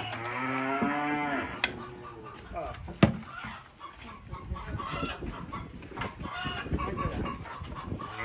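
A cow moos once at the start, a long call that bends up and down in pitch, then chickens cluck, with a sharp knock about three seconds in.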